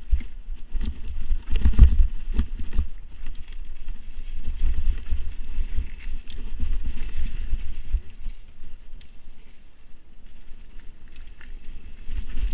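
Mountain bike descending a dirt forest trail at speed: wind buffeting the microphone, tyres rolling over dirt and dry leaves, and the bike rattling and knocking over bumps, loudest about two seconds in.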